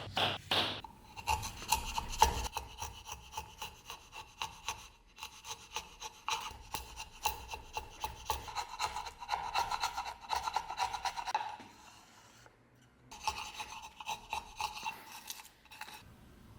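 Hand tool scraping a workpiece in quick, repeated back-and-forth strokes, stopping briefly about twelve seconds in, then starting again.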